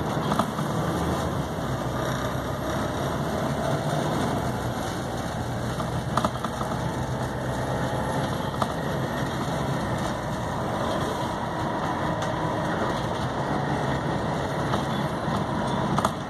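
Volvo B7TL bus's 7.3-litre Euro III diesel engine running steadily, with a few sharp rattles.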